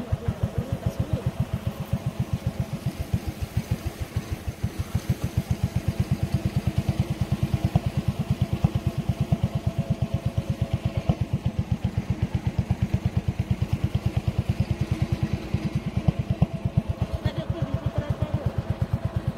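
Boat engine running steadily at a constant speed with a rapid, even chug.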